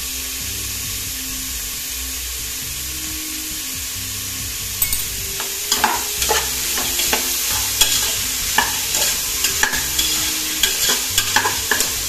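Diced carrots, beans and green peas sizzling in coconut oil in a pressure cooker pot. From about five seconds in, a steel slotted spatula stirs them, clicking and scraping against the pot many times over the steady sizzle.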